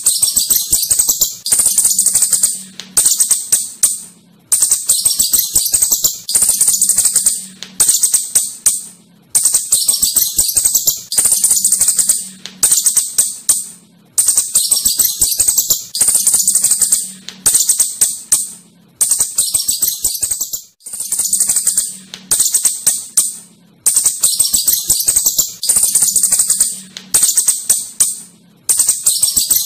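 Asian house shrew (tikus clurut) chattering: runs of rapid, high-pitched, jingling clicks, each lasting a second or so, repeating about every one and a half seconds with short pauses between.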